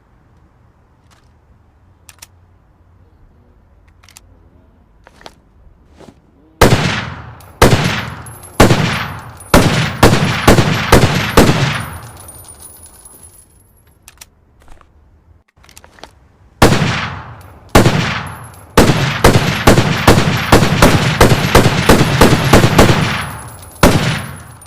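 SKS-D rifle firing. A few faint clicks first, then three single shots about a second apart and a quick string of shots. After a pause come two more single shots, a longer rapid string of about three or four shots a second, and one last shot.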